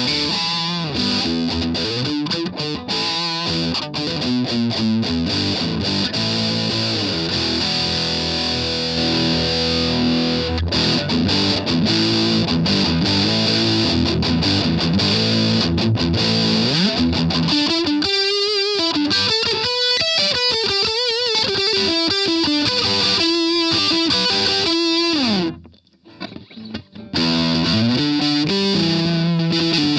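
Electric guitar, an Ibanez RG550, played through an MXR Custom Badass '78 Distortion pedal, giving a heavily distorted tone. It moves from chugging riffs and chords to held lead notes with wide vibrato and a few slides. The playing stops briefly near the end, then starts again.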